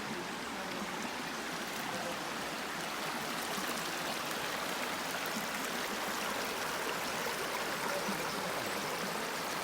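A stream's water flowing steadily, an even, unbroken rush of running water.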